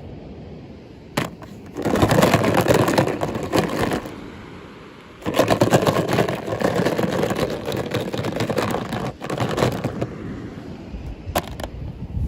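Packaging crinkling and crackling as it is handled and opened, in two long stretches, with a single sharp click before each and another near the end.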